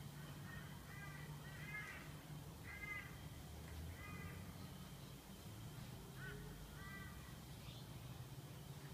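A bird giving about half a dozen short calls, faint, over a low steady hum.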